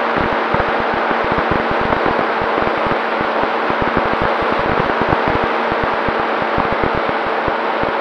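Onboard sound of an FPV model aircraft in flight: steady rushing wind noise with a faint motor hum under it, and gusts buffeting the microphone irregularly throughout.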